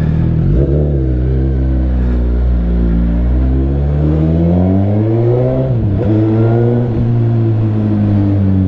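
Suzuki GSX-S 1000's inline-four engine, breathing through a freshly fitted Two Brothers aftermarket muffler, pulling under throttle. Its pitch climbs for a few seconds, drops sharply about six seconds in, then runs steady.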